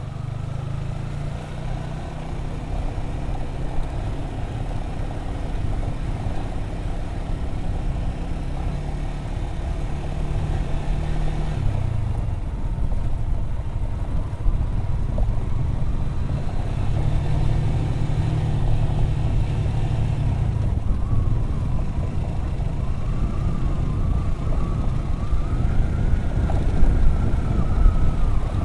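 Motorcycle engine running while riding, with low wind rumble on the handlebar-mounted microphone. In the latter part a whine rises and falls as the engine speed changes.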